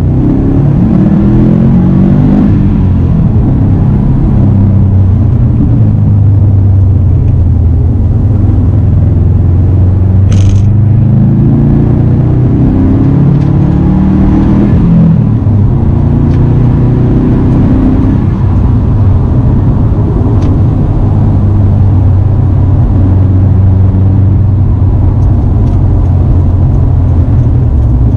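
2016 Subaru WRX STI's turbocharged boxer four-cylinder running through its SPT performance exhaust while driving: the engine note climbs in pitch under acceleration, climbs again about nine to fifteen seconds in, drops back, then holds steady at cruise. A brief sharp sound is heard about ten seconds in.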